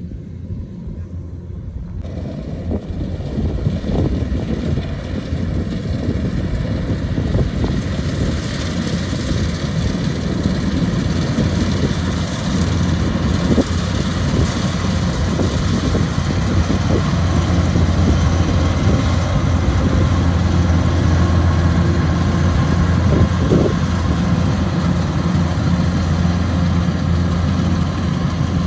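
Kubota DC-105X combine harvester's diesel engine running steadily under load with a low hum, growing louder over the first several seconds.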